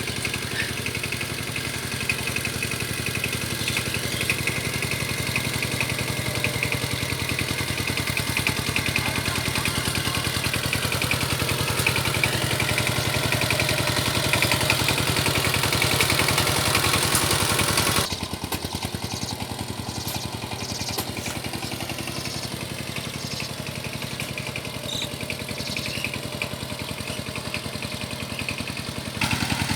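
Single-cylinder diesel engine of a Sifang power tiller running steadily with a rapid, even chug. About two-thirds of the way through, the sound abruptly becomes quieter and duller. It comes back louder just before the end.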